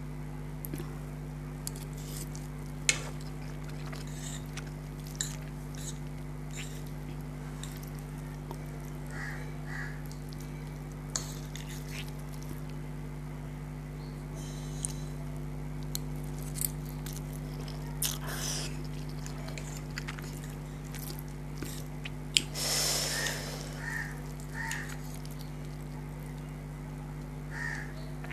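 A person eating spicy instant noodles close to the microphone: scattered soft chewing and slurping mouth sounds and a few sharp clicks of cutlery on the plate, with one longer, louder slurp a little past two-thirds of the way in, over a steady low hum.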